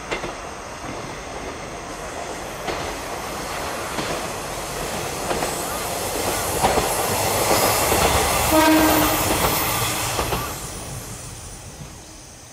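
JR Kyushu KiHa 47 diesel railcar passing: its engine and wheels grow louder as the two-car train nears, with clicks over the rail joints. The sound peaks as it goes by close, with a brief higher tone near the loudest point, then fades as it moves away.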